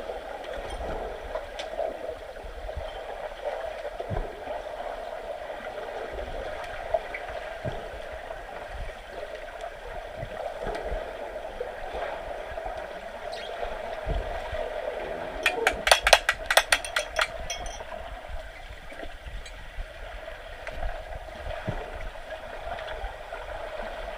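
Swimming-pool water churning and gurgling, a steady rushing noise with scattered low thumps, broken about two-thirds of the way through by a quick run of sharp clicks.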